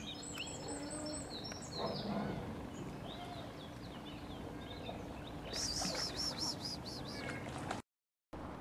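Songbirds chirping and singing, with a quick run of repeated high chirps about two-thirds of the way in. The sound cuts out completely for a moment near the end.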